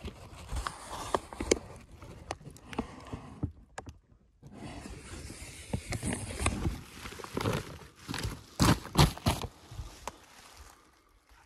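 A tarp rustling and brushing right against the microphone as it is handled over the collection box, with scattered clicks and knocks and a few louder thumps about nine seconds in.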